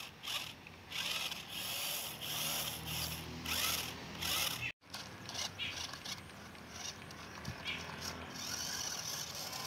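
Toy RC rock crawler's small electric motor and gearbox whirring and grinding in short throttle bursts as it crawls over dirt and twigs. The sound drops out briefly a little before halfway, then goes on steadier and softer.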